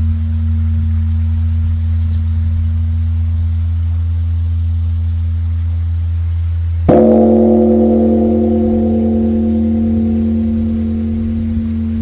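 Large bronze Korean Buddhist temple bell (beomjong) humming low from the previous stroke, then struck again with its wooden log striker about seven seconds in. The new stroke rings out with many tones and dies away slowly with a pulsing, wavering hum.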